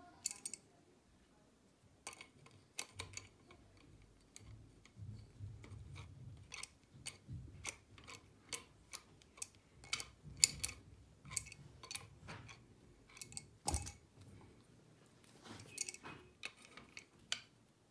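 Irregular sharp metal clicks and taps, a few a second, of an adjustable wrench being set on and turned against the pressure-gauge fitting of a PCP air rifle, with a soft rumble from handling.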